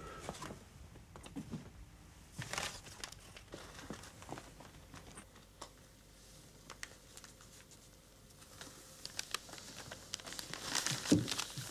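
Paper crinkling and rustling in short bursts as a paper-wrapped gift is handled. It is louder about two and a half seconds in and again near the end.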